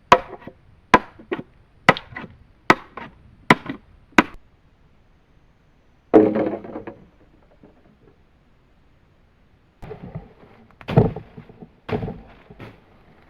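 Chopping into wood with a blade: about six sharp strokes roughly a second apart, each followed by a lighter knock. About halfway through comes a second-long crunching rustle, and near the end a few more irregular chops.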